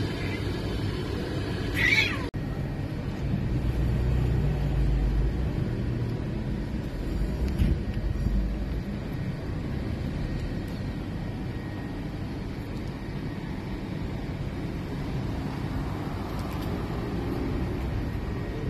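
A street cat meows once, briefly, about two seconds in, over a steady low rumble.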